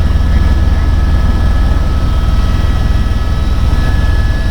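Helicopter in flight heard from inside the cabin: a steady, loud low rotor chop with a constant high engine whine over it.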